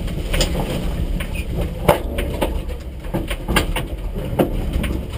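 Rally car heard from inside the cabin: a steady low engine rumble, with irregular sharp knocks and clicks from the stripped car body, the loudest about two seconds in.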